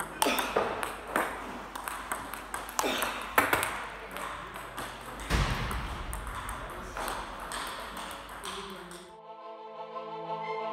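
Table tennis balls being fed and struck with backhand strokes in multiball training: a quick run of sharp clicks of ball on racket and table, ringing in a large hall. About nine seconds in the hall sound cuts off and music with sustained tones takes over.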